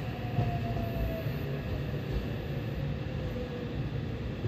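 Yokohama Municipal Subway 3000R-series train heard from inside the car as it brakes into a station: a steady running rumble with a traction-motor whine falling in pitch as the train slows.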